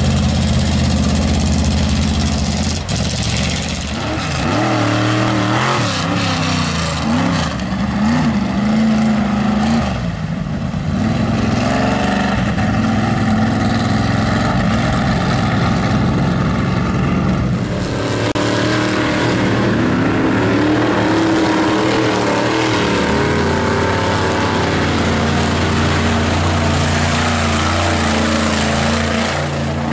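Engines of lifted 4x4 mud trucks revving hard as they drive one after another through a mud pit, the pitch rising and falling with the throttle. The sound changes abruptly twice as one truck gives way to the next.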